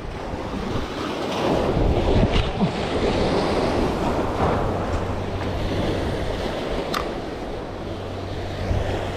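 Small waves washing and splashing against jetty rocks, with wind buffeting the microphone.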